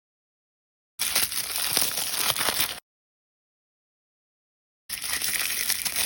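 Crinkling and tearing of plastic blind-bag packaging, in two bursts of about two seconds each with dead silence between them.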